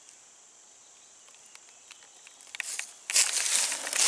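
A faint steady high-pitched insect drone, then, from about two and a half seconds in, loud rustling and crunching of dry fallen leaves underfoot that covers everything else.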